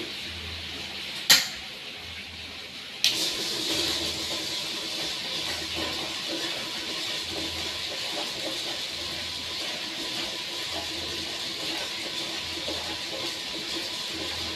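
A sharp click about a second in; then, about three seconds in, a 12-volt electric popcorn machine starts and runs with a steady hum and hiss.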